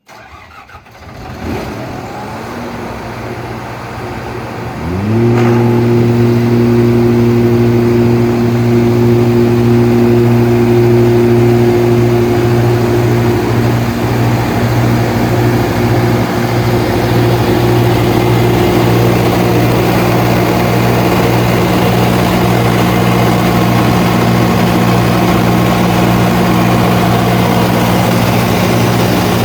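80 kW Kohler diesel generator starting up. It cranks for a few seconds, catches about five seconds in, quickly comes up to speed, and then runs at a steady, even speed.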